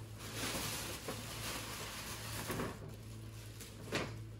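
Tissue paper and a paper gift bag rustling as a present is pulled out, with a single short sharp tap about four seconds in.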